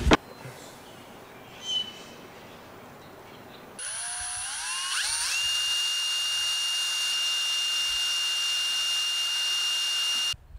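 Cordless drill spinning a wooden dowel to mix two-part epoxy in a plastic cup. After a few quiet seconds the motor starts about four seconds in, its whine climbing in steps up to full speed, then runs steadily and stops abruptly near the end.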